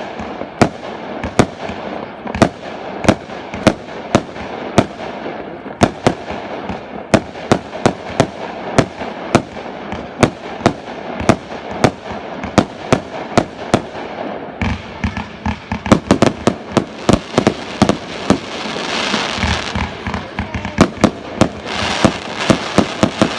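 Fireworks display: a rapid, steady run of sharp bangs from exploding shells, about two to three a second, over a continuous crackle that builds denser and louder toward the end.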